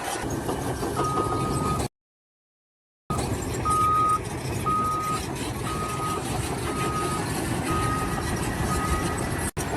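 Reversing alarm of a heavy construction vehicle beeping about once a second, one steady high tone, over the rumble of its running engine. The sound cuts out for about a second near two seconds in.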